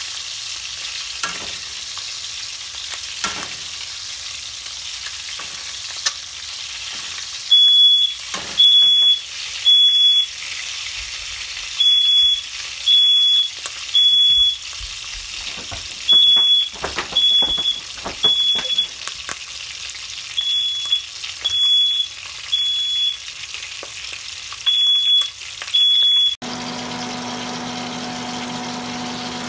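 Meat frying in oil in an aluminium pot, with a steady sizzle and a few light knocks of a metal ladle. From about a quarter in, a smoke alarm sounds its loud, high beeps in repeated groups of three. Near the end the sizzle and beeping cut off abruptly and a steady low hum takes over.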